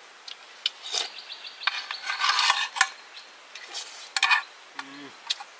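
Utensils clinking and scraping against dishes: a few sharp clicks, then a busier stretch of scraping and clatter about two seconds in, then more scattered clicks.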